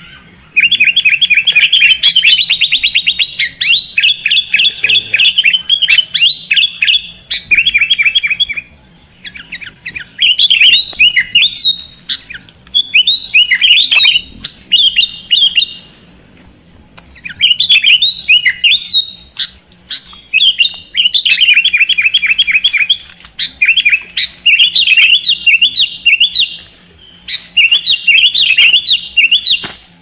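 Sooty-headed bulbul (kutilang) singing loudly in phrases of rapid, chattering chirps, each a few seconds long, separated by brief pauses.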